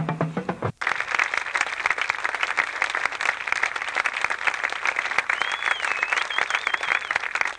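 A marching drumline's street-beat cadence ends with a sharp cutoff under a second in, and the audience breaks into steady applause, with someone giving a wavering whistle partway through.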